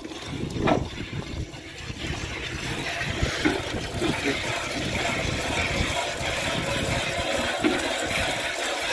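A goat being milked by hand into a copper pot: thin jets of milk squirting into foamy milk, a quick, continuous hissing patter of squirts.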